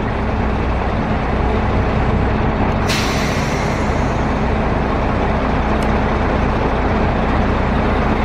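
Steady engine rumble with a constant low hum. About three seconds in there is a sharp hiss of released air that fades over about a second.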